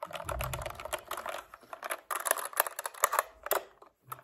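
Keys of a Newmen GM610 mechanical keyboard being typed in quick runs of sharp clicks, with a brief pause just before two seconds in. A dull low thump comes at the start.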